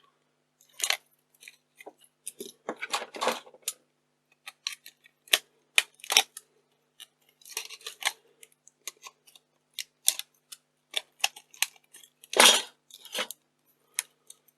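Small hand tools clicking and scraping on the plastic and metal parts of a Yashica KD-1700 Video 8 camcorder being taken apart: scattered sharp clicks and short scrapes, with louder scraping bursts about three seconds in and again near the end.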